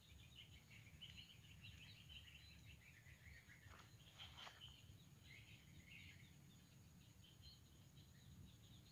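Near silence: faint bird chirps twittering on and off over a low background rumble.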